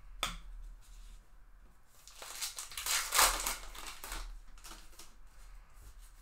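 A trading-card pack wrapper crinkling and tearing as the pack is opened, loudest about three seconds in, after a light click of cards being handled.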